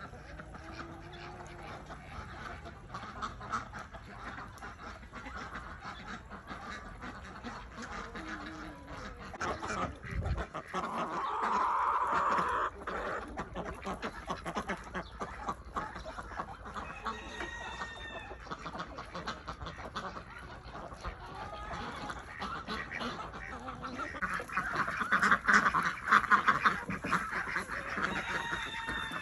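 Farm poultry calling, many birds at once, with louder stretches of calling about twelve seconds in and again near the end.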